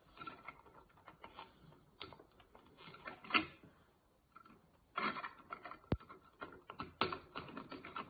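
Irregular light clicks and taps of small plastic parts being handled and pushed together as an accessory is fitted onto a Henry desk vacuum's hose, with one sharp click about six seconds in.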